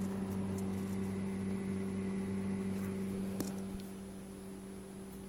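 Household refrigerator-freezer running with a steady electrical hum, easing off slightly near the end, with a faint tick about three and a half seconds in.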